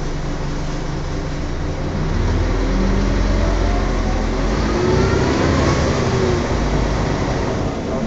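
Volvo Olympian double-decker bus driving, heard from inside the passenger saloon: a steady low rumble that grows louder about two seconds in, with a whine rising and falling over the next few seconds. This whine is the strange noise that the uploader puts down to the differential.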